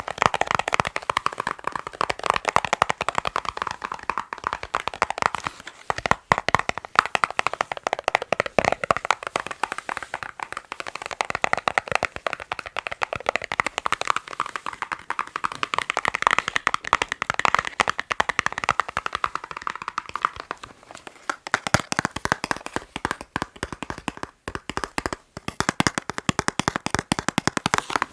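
Fast, continuous fingertip tapping on a box: a dense stream of rapid clicks. About three-quarters of the way through, the taps become fuller and lower.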